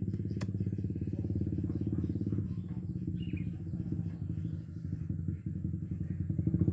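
A small engine running steadily with a fast, even firing pulse. It eases off a little in the middle and grows louder near the end.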